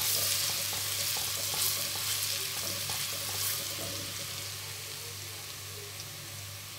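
Garlic frying in hot oil with fenugreek seeds in a pan for a tempering: a steady sizzle that slowly dies down as the oil cools around the garlic.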